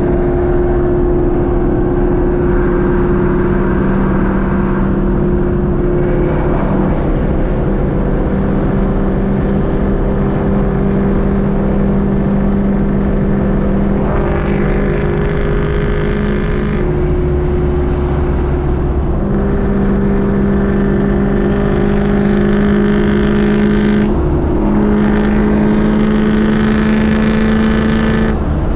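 Straight-piped Ford Mustang GT's 4.6-litre V8 droning steadily at highway cruise. Its pitch steps and creeps up and down a little several times as the throttle and speed change.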